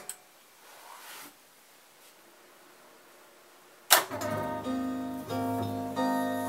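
Music playing back from a Teac A-4010GSL reel-to-reel tape deck stops abruptly, leaving about four seconds of near silence with faint hiss. Guitar music then starts sharply about four seconds in.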